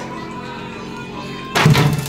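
Background music, with a single short thump about a second and a half in.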